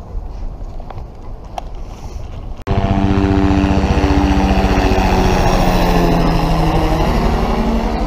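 Low rumble of wind on the microphone, then from about two and a half seconds in, a helicopter flying low overhead: loud, steady rotor chop with an engine whine.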